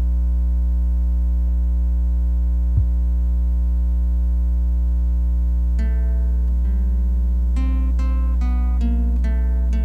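Steady electrical mains hum from the sound system, with a single thump about three seconds in. From about six seconds, an acoustic guitar plucks single notes one after another, the opening of a hymn accompaniment.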